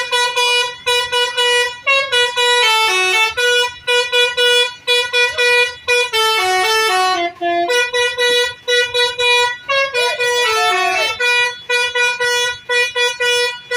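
Basuri telolet multi-tone horn on a tour bus playing its tune. Quick repeated honks on one note are broken three times by a run of falling notes, about two to three seconds in, around six seconds in, and again near ten seconds.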